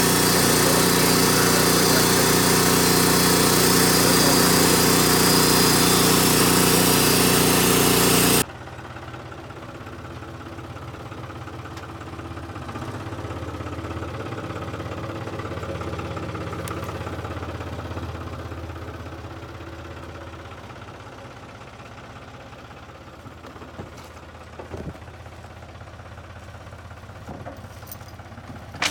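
Engine running loudly for about eight seconds, then an abrupt cut to a quieter engine running steadily at low speed, with a few light knocks near the end.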